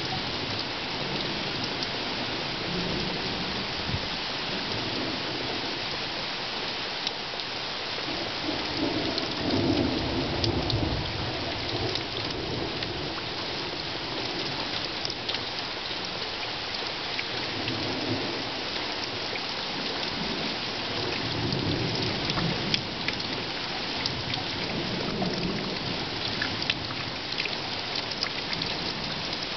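Steady rain hissing throughout a thunderstorm, with low thunder rumbling on and off several times, loudest about a third of the way in.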